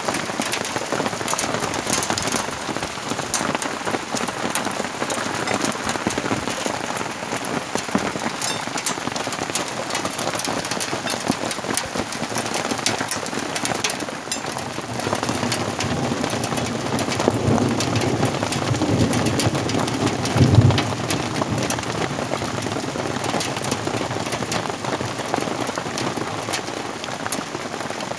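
Hail and rain pelting down in a hailstorm: a dense clatter of countless small sharp impacts over a steady rushing hiss. A low rumble swells up about halfway through and peaks in a brief heavy burst about two-thirds of the way in.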